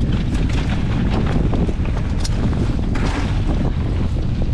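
Strong wind buffeting the microphone, a steady heavy rumble with a gust of louder hiss about three seconds in.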